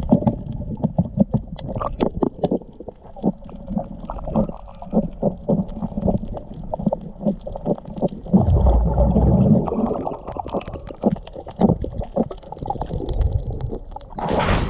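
Underwater sound heard through a submerged camera: muffled low water noise with many scattered clicks and knocks, a louder low rumble for about a second around eight seconds in, and a sharp splash near the end as the camera breaks the surface.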